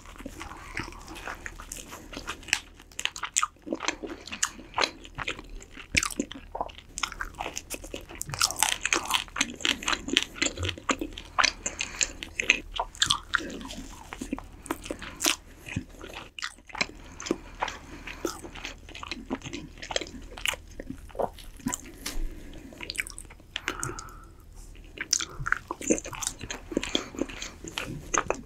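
Close-up chewing of roast chicken, with many short crisp crunches and clicks as the skin and meat are bitten and chewed, pausing briefly about halfway through.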